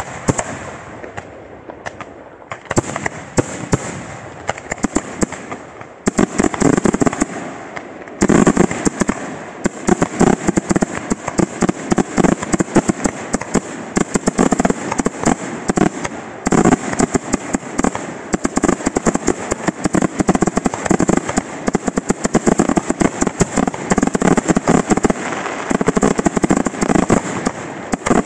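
Aerial fireworks bursting in a rapid barrage of bangs and crackling. The barrage is sparser at first, then thickens about six seconds in and again about eight seconds in, running almost without a break after that.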